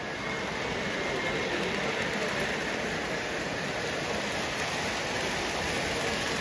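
Model trains rolling along their track on a show layout, a steady rumble of wheels on rail as a freight train with a caboose and a streamlined passenger train pass close by.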